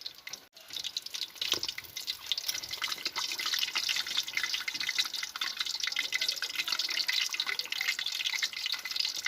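Pork leg deep-frying in hot oil for crispy pata: a dense, steady crackle of pops and sizzle that gets louder about a second in.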